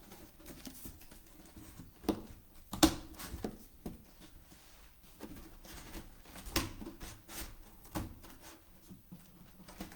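Scissors cutting through a box, in irregular snips and crunches, several of them sharp and loud.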